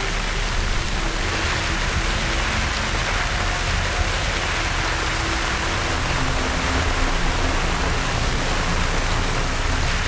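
Steady rain falling, an even hiss with a low rumble underneath.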